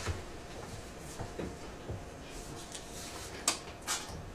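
Sheets of paper rustling as they are handled and turned over on a desk, with two short sharp sounds near the end.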